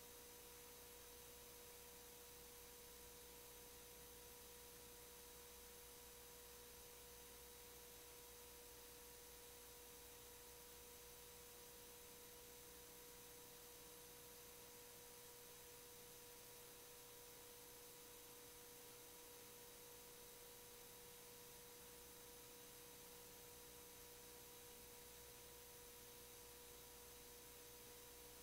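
Near silence: a faint steady tone with a faint hiss, unchanging throughout.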